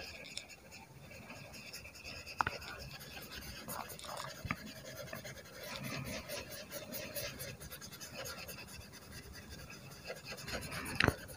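Soft, faint rubbing and scratching of a blending tool smudging graphite pencil shading on paper, with a few small clicks.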